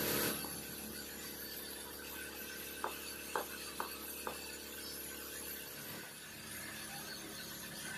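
A few light clicks and clinks from a whitewall tyre being worked onto a scooter wheel rim by hand: four quick clicks about three to four seconds in, over a steady background hum, after a brief rush of noise at the very start.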